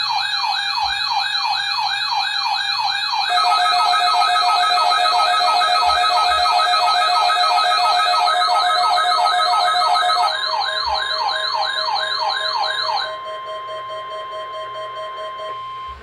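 NOAA Weather Radio warning-alarm test tones: warbling, siren-like tones sweep up and down about three times a second, layered with steady and pulsing tones. The warbling stops about thirteen seconds in, leaving a quieter steady tone that cuts off just before the end.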